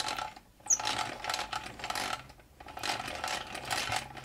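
Vulcan toy sewing machine's metal drive gears and needle bar rattling and clicking as its hand wheel is cranked round, in three short runs. The drive turns over freshly reassembled, its straightened hand wheel shaft back in place.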